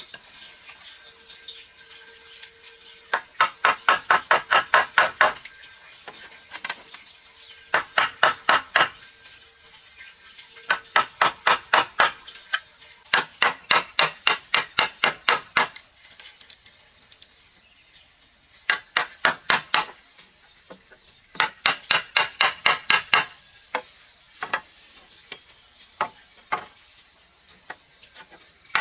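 Six quick runs of hammer strikes on wood, about five or six blows a second, each run lasting one to two and a half seconds, with a few single blows near the end.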